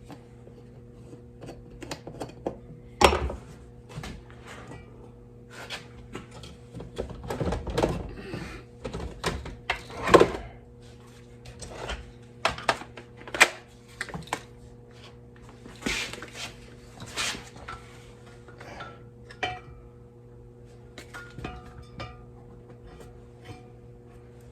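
Irregular knocks, taps and rubbing as a lawn tractor tire is handled and felt over by hand, the two loudest knocks about 3 and 10 seconds in, over a steady low electrical hum.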